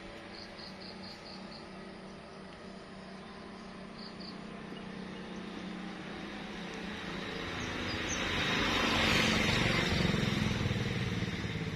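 Steady low engine hum, with a broad rushing noise that swells to a peak about nine seconds in and eases near the end. Short runs of high insect chirps sound early on.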